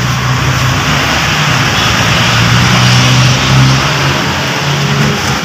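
A motor vehicle engine running with a steady low hum, swelling a little in the middle, over a wash of traffic-like noise.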